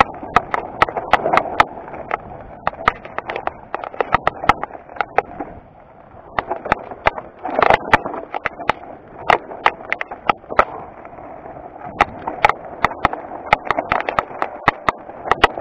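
Mountain bike descending rocky trail, tyres rolling and crunching over loose stones, with frequent irregular sharp knocks and rattles from the bike over a steady rushing noise. It eases off briefly about six seconds in.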